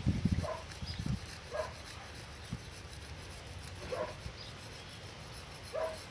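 A knife scraping and cutting through stingray skin during the first second. Then a dog gives four short, high whimpers spread over the rest.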